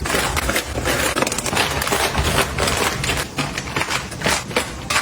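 Hands handling and setting down small items and packaging, making a dense run of quick, irregular clicks and taps.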